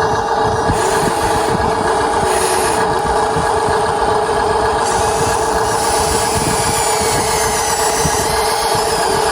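Radio-controlled Huina 1593 excavator running: a steady mechanical whine from its motors and gearing over a rough rattle, with the higher sound changing a few times as the machine works.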